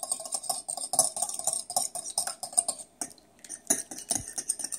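Whisk beating eggs in a bowl: a rapid run of clicks against the bowl, pausing briefly about three seconds in, then resuming.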